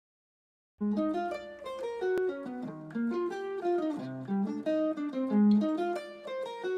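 Opening music: a melody picked note by note on a plucked string instrument, starting suddenly about a second in.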